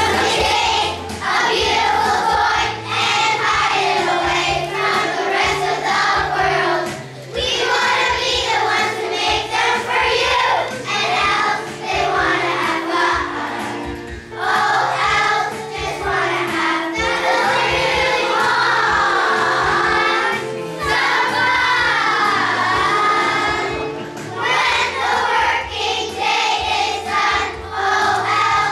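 Choir of young children singing a song together over an instrumental accompaniment with a stepping bass line. Some notes in the middle are held long with a wavering pitch.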